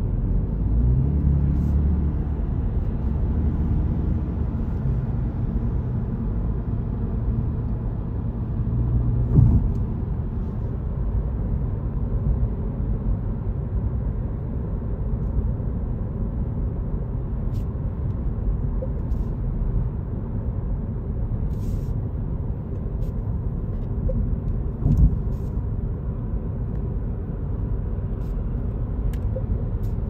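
Road noise inside a moving car's cabin at expressway speed: a steady low rumble of tyres and engine. Two short louder thumps come about nine and a half and twenty-five seconds in.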